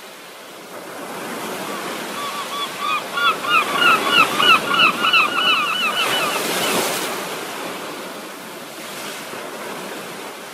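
Ocean surf washing steadily. For several seconds in the middle a bird calls over it in a fast series of short, loud notes, about four a second, before the calls fade out.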